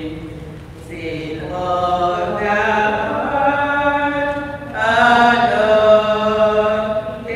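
People singing a slow hymn with long held notes, easing off about a second in and breaking briefly just before the louder second phrase.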